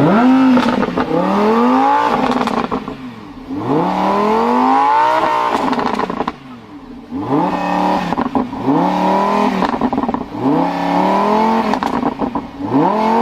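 Lamborghini Huracán LP610-4's naturally aspirated V10 being blipped over and over, about nine quick revs that rise and fall away, with exhaust crackles and pops as the revs drop.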